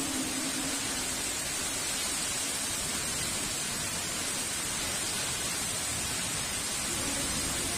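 Heavy rain falling steadily, an even hiss with no breaks or sudden sounds.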